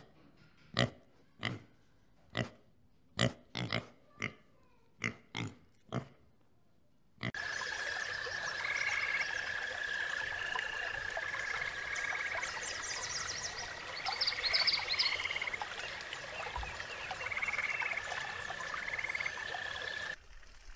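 A pig grunting, about ten short grunts spaced roughly half a second to a second apart. About seven seconds in it cuts to a steady chorus of high trills and pulsed chirps that runs until near the end.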